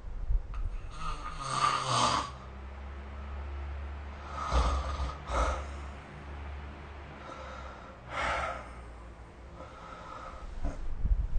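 A sleeping person snoring, recorded through a phone's microphone: rough, rasping snores come a few seconds apart, the loudest about a second in.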